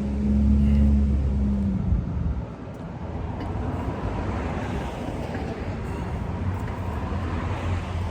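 A steady low engine hum that stops about two seconds in, followed by steady traffic-like noise.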